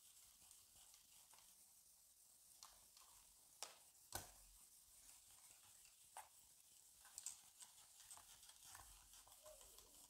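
Faint wiping and rubbing of a duster across a whiteboard as it is erased, with a few light knocks against the board, the sharpest about four seconds in.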